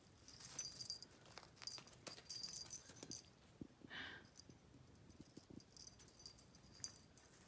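Metal jingle on a cat's collar, jingling in bursts as the cat moves while nibbling catnip, with a single short noise about four seconds in.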